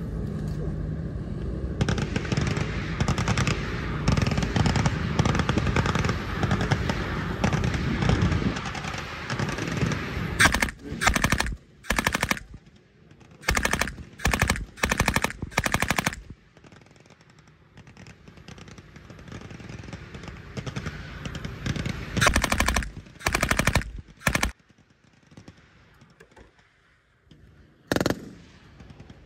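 Machine guns firing blanks: a sustained stream of rapid fire for about the first ten seconds, then short, separated bursts with pauses between them, and a single shot near the end.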